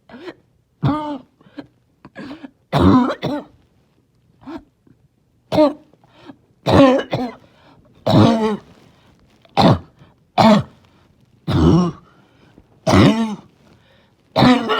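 A person's barking cough, with the person trying not to choke: a long fit of more than a dozen coughs, roughly one a second, some coming in quick pairs.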